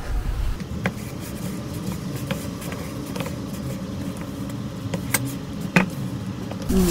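A spatula stirring crumbly cookie dough in a plastic bowl: soft scraping with a handful of light clicks as it knocks against the bowl, over a low steady hum.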